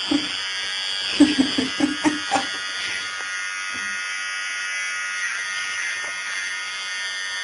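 Electric hair clippers running with a steady buzz, shaving the hair off a head.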